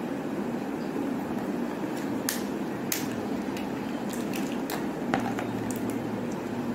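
Steady background noise with a scatter of light, sharp clicks and crackles between about one and six seconds in, from small items being handled at a crafting table.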